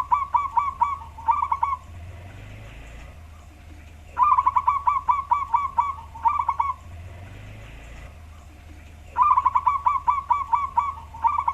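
Male zebra dove (perkutut) singing its cooing song, deep-voiced for its kind: the end of one phrase, then two more, each a quick run of about six notes, a short pause and a closing pair of notes, repeating about every five seconds.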